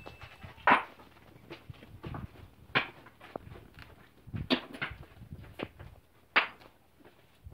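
Stones clacking against stones as rocks are picked up and tossed aside on a stony tent floor: four sharp knocks at uneven gaps, with quieter scuffs on gravel between them.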